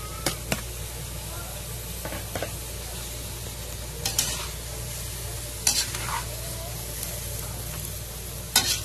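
A metal spatula scrapes and knocks against a metal wok as sliced bitter gourd and chicken are stir-fried, over a steady sizzle. The scraping strokes come every second or two, and the loudest is near the end.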